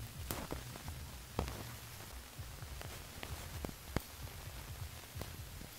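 A wooden-handled digging tool chopping and scraping into moist soil, with irregular knocks and scrapes, a few sharper than the rest, over a low rumble.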